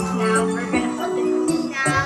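Background music with held notes and light, ticking percussion.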